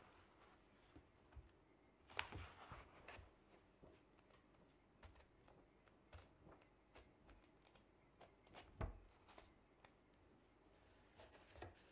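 Faint rustling and flicking of paper pages as a hardback storybook is leafed through, with a louder page flick about two seconds in and a short low knock near nine seconds.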